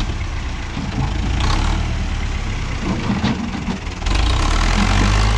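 Renault 651 tractor's diesel engine running while its front-loader bucket works at a big boulder; about four seconds in the engine gets louder and heavier as it takes on more load.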